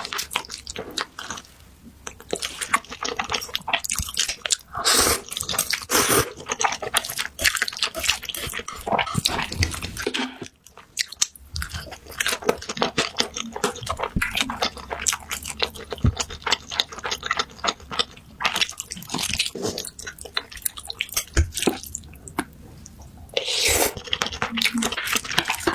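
Close-miked eating sounds: a person chewing and biting mouthfuls of instant noodles, with dense wet smacking and clicking, pausing briefly about ten seconds in.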